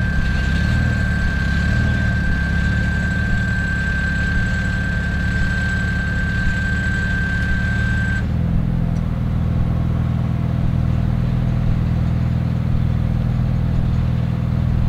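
Jeep Wrangler engine running low and steady near idle while rock crawling up a granite ledge. A thin high whine stops about eight seconds in.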